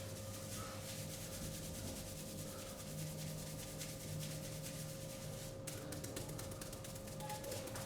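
Hands rubbing briskly over a client's skin and hair during a barber's massage, in quick repeated strokes.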